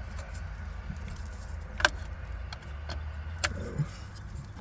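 Plastic wiring connectors and loose cables rattling behind a car stereo as the plugs are fitted, with two sharp clicks, about two seconds in and again a second and a half later, over a steady low hum.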